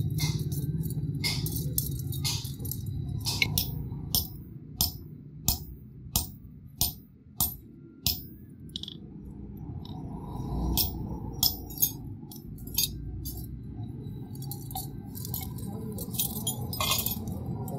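Hand hammer striking an iron chain link on a steel block anvil, sharp ringing metal blows. In the middle comes a run of six evenly spaced strikes, about one and a half a second, with lighter clinks of the chain around them.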